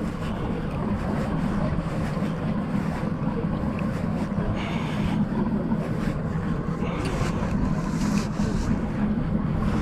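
Steady low hum of a boat's engine running, with wind on the microphone and water noise; a couple of brief rushes of hiss around halfway and near the end.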